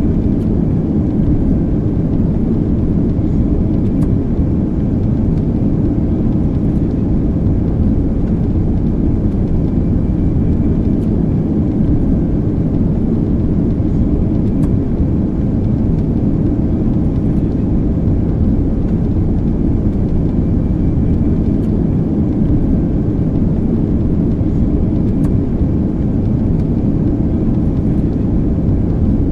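Airplane in flight heard from inside the cabin: a loud, steady low drone of engine and airflow noise, with faint steady tones above it.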